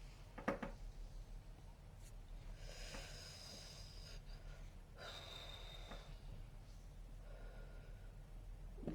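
Quiet breathing between hiccups and burps, with one short, sharp hiccup about half a second in. It is followed by a few faint breaths, some with a slight whistle.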